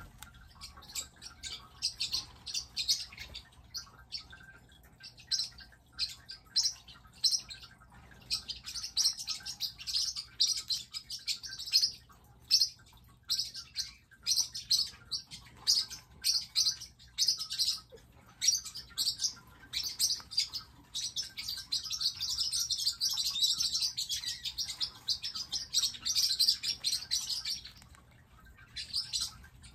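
Pet parrotlets chirping and calling in quick, high-pitched bursts, growing almost continuous in the second half before a short pause near the end.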